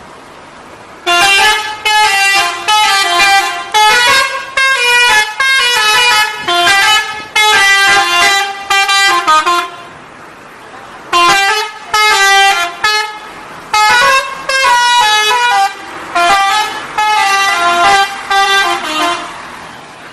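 A bus's 'telolet' musical air horn plays a quick tune of changing notes. It runs in two phrases of about eight seconds each, with a short pause between them.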